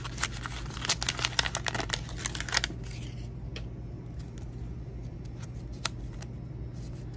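Wax paper pack wrapper crinkling and baseball cards being handled, with a dense run of sharp crackles over the first two and a half seconds, then scattered single clicks.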